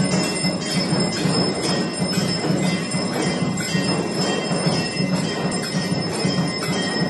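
Temple aarti: continuous clanging and ringing of temple bells, with sustained metallic tones over a steady, rapid beat.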